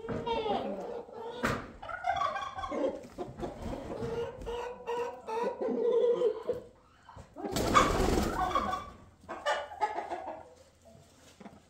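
Chickens clucking and calling, many short overlapping calls, with a loud rustling noise about eight seconds in.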